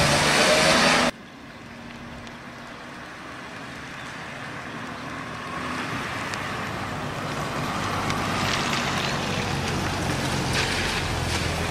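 Car driving on a wet road: engine running and tyres hissing on the wet pavement, growing gradually louder as it comes closer. A louder stretch at the start cuts off abruptly about a second in.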